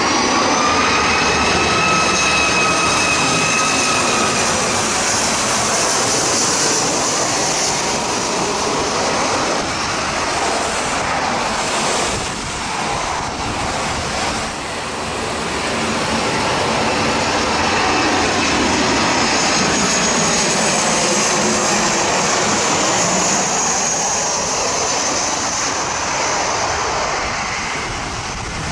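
Jet airliners' turbofan engines passing low overhead: a loud, continuous roar with high whining tones that bend in pitch, near the start and again in the last third.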